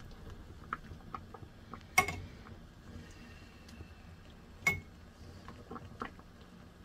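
A metal ladle clinking sharply twice, about two seconds in and again near five seconds, with a few lighter ticks and scrapes, as boiled mushrooms are scooped out of the pan.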